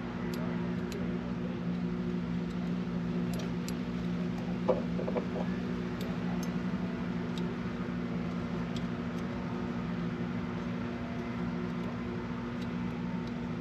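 Steady mechanical hum of running equipment, with a few faint ticks and one short knock about five seconds in.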